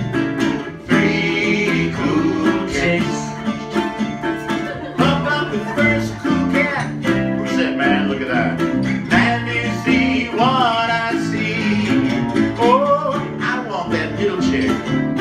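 Acoustic swing trio playing: a resonator ukulele strummed with two acoustic guitars, with a man's voice singing over it from about halfway in.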